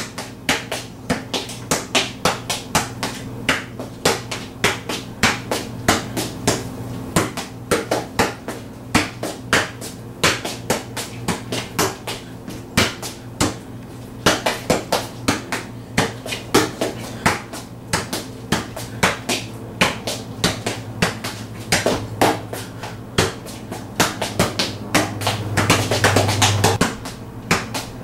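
Soccer ball being juggled and kicked on a concrete garage floor: a quick run of sharp taps and bounces, two or three a second. Under it runs a steady low hum that swells louder for a couple of seconds near the end.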